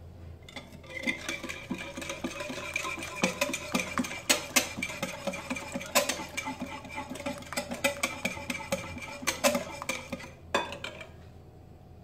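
Wire balloon whisk beating egg and sugar in a glass bowl: fast, continuous clicking and scraping of the metal wires against the glass, with a light ringing from the bowl. It starts about half a second in and stops about a second before the end.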